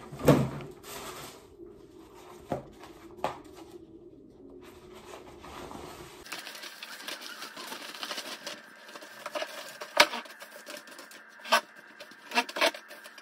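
A cloth tablecloth being unfolded, shaken out and smoothed across a table by hand: light rustling with scattered clicks and taps, after a sharp knock just at the start.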